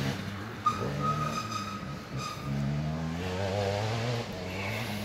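ATV (quad) engines revving, rising in pitch twice and easing off in between.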